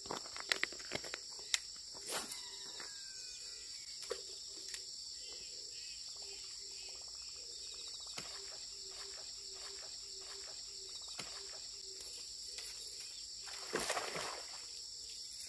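Steady high-pitched insect chorus, with a few sharp clicks in the first two seconds and a faint, pulsing low whir through the middle as a baitcasting reel is cranked to retrieve a topwater lure. A brief rustle comes near the end.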